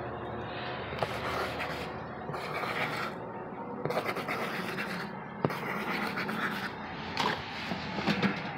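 Scratching and rubbing from cardboard and paper brushing against the camera as it is handled, with a few light knocks.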